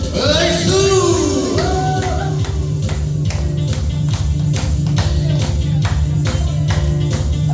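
Backing music with a steady bass beat and regular percussion strikes. A sliding melody line plays over the first two seconds or so.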